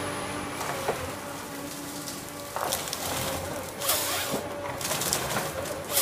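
Eltec harvester's Cummins diesel running steadily with a held whine, while the Logmax head works a tree: bursts of crackling and snapping wood and branches come several times, the loudest near the end.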